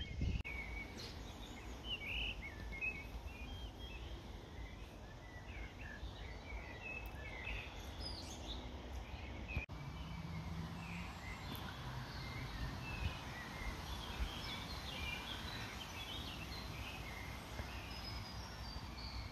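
Small birds chirping in short, scattered calls over a steady low outdoor background noise, with a brief dropout about halfway through.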